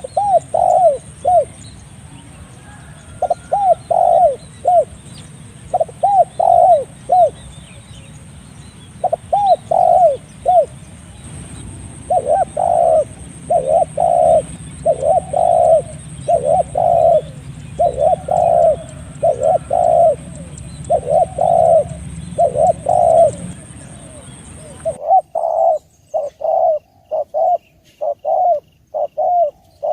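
Spotted dove (tekukur) cooing over and over in short phrases of three or four notes, the phrases coming closer together after about ten seconds. A steady background hiss cuts off abruptly about 25 seconds in while the cooing goes on.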